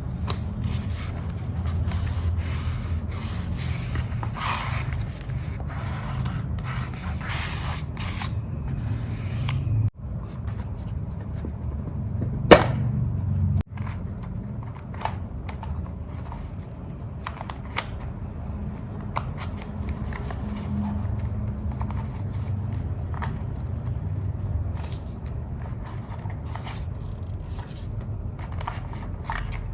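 Paper and stationery being handled while journaling: rustling, scraping and rubbing with many small clicks, over a steady low hum. There is one sharp, loud click about twelve seconds in, and the sound breaks off abruptly twice, like cuts.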